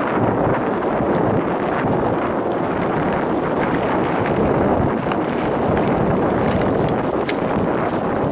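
Mountain bike rolling at speed over a loose gravel track: a steady rumble of knobby tyres on stones and wind on the microphone, with scattered sharp ticks of gravel.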